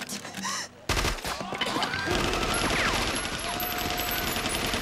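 Sustained automatic gunfire from a machine pistol: a rapid, unbroken stream of shots starting about a second in, with cries from a crowd over it.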